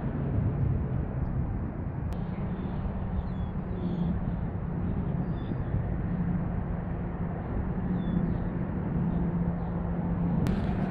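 Steady outdoor beach ambience: an even wind-like noise with a steady low hum underneath, and a few faint high chirps.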